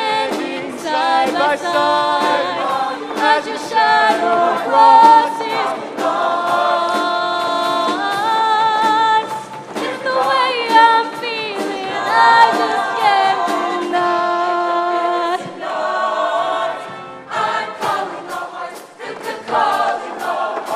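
Show choir singing a pop number in harmony with a live band, drums keeping a steady beat under the voices. Partway through, a male soloist sings into a microphone over the choir.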